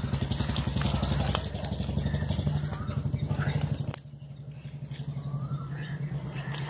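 An engine running steadily at idle, a low even throb. It drops quieter after a sharp click about four seconds in.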